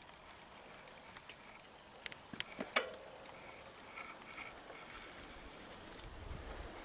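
Quiet outdoor background with a cluster of small sharp clicks and taps between about one and three seconds in, and wind rumbling on the microphone near the end.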